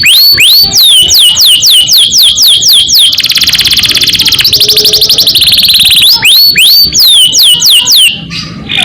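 Domestic canary singing loudly: repeated down-slurred whistles, two or three a second, then about three seconds in a fast rolling trill (the 'ngerol' roll) lasting about three seconds and shifting pitch partway, before the down-slurred whistles return.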